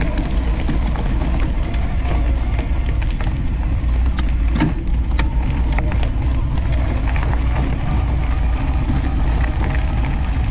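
Knobby 29-inch tyres of an electric mountain bike rolling over a gravel driveway: a steady low rumble with a constant crackle of small stones, and a sharper knock about four and a half seconds in.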